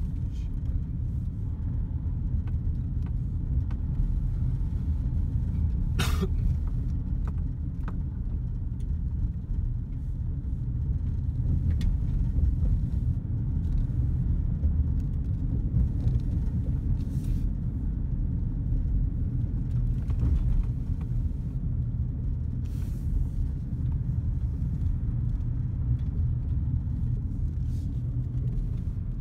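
Car driving on a narrow paved road: a steady low rumble of engine and tyres, with a few brief clicks, the sharpest about six seconds in.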